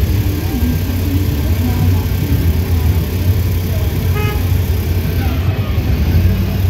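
Refuse truck engine running steadily, a loud low rumble.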